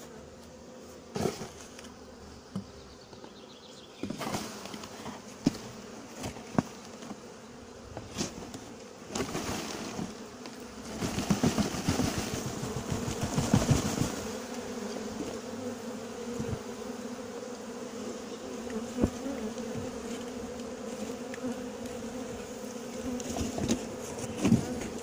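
A mass of honeybees buzzing in a steady hum, the sound of a colony freshly shaken out of a box during a transfer into a hive. Scattered knocks and a louder rustling stretch in the middle sit over the hum.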